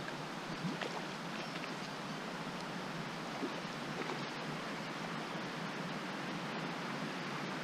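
Steady, even hiss of outdoor background noise, with a few faint short ticks about a second in and again around four seconds in.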